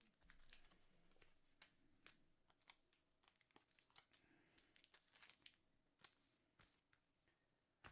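Near silence with faint, scattered crinkles and light clicks of trading-card foil packs being handled.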